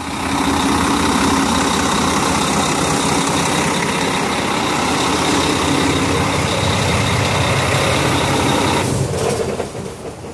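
Volvo semi-truck's diesel engine running steadily, with a faint high whine; the level drops about nine seconds in.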